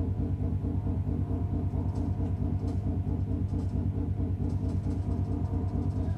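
A low, droning rumble with a fast, even throb of about five pulses a second, steady throughout: an electronic sound-design track accompanying the stage performance.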